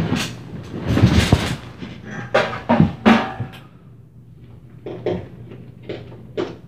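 Irregular heavy thuds and bangs from an upstairs apartment, heard through the ceiling: stomping footfalls and knocks, loudest in a cluster about a second in and a few sharp bangs near the middle, fainter single knocks later. A low steady hum runs underneath.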